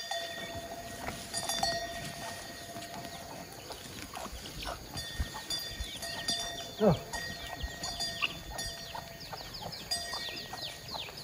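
A livestock bell clanks every second or two with a ringing metallic tone. Over the middle and end, many quick high falling peeps of chicks run on, and a single louder call falls steeply in pitch about seven seconds in.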